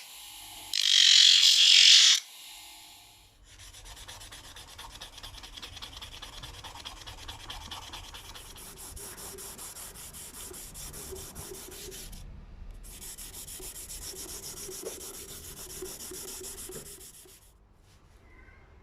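Abrasive rubbing on the knife, as in hand sanding or sharpening, going steadily for about fourteen seconds with a brief pause past the middle. It is preceded about a second in by a loud, hissy burst lasting about a second and a half.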